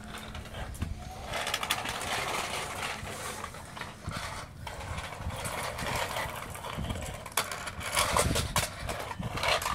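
A large Presa Canario–Great Dane cross chewing a raw turkey neck: a run of quick wet crunches and clicks as its teeth work through the neck's bone.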